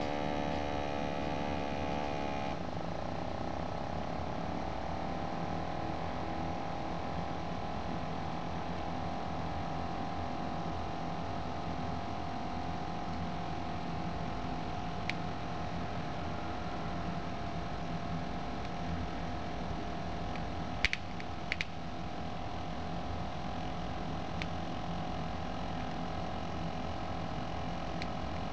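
Omron wrist blood-pressure monitor's small electric air pump running steadily as it inflates the cuff, a thin motor whine that sinks slowly in pitch as the pressure builds. A few faint clicks come through about two-thirds of the way in.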